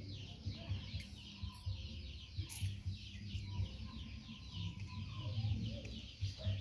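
Birds chirping in the background: a dense, continuous run of short, rapid falling chirps, with irregular low thumps underneath.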